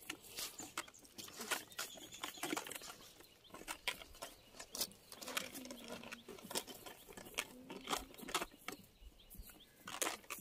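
Nylon cast net rustling and crackling in quick, irregular clicks as it is handled and worked through by hand.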